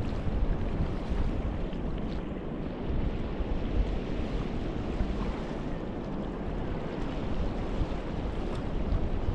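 Wind buffeting the microphone as a rough, uneven rumble, with small waves washing onto a sandy shore underneath.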